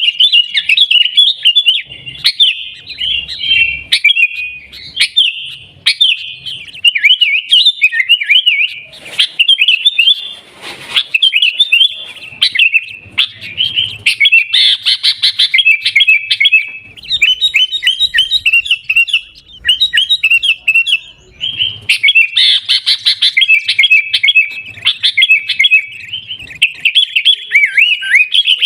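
Sooty-headed bulbul (kutilang) singing a fast, near-continuous run of bright chirping, warbling notes, louder in a couple of stretches.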